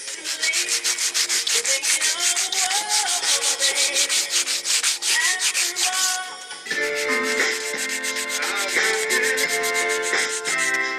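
Maroon Scotch-Brite pad (07447) scuffing the painted finish of a Bentley Continental GT alloy wheel by hand in quick back-and-forth strokes, about seven a second, with a brief pause about six seconds in. The scuffing keys the old finish so the new paint has something to bite to.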